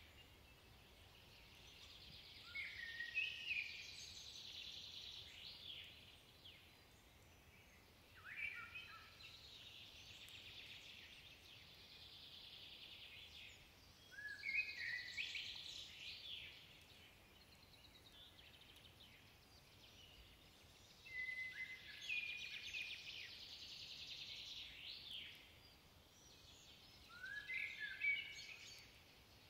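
Common blackbird singing, faint: five song phrases about six seconds apart, each opening with low fluting notes and ending in a high twitter.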